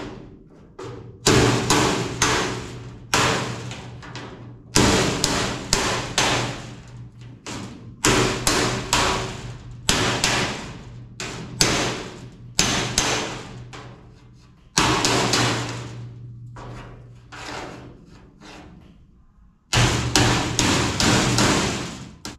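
Hammer blows on sheet metal, about eighteen in irregular bunches, each one ringing on for up to a second.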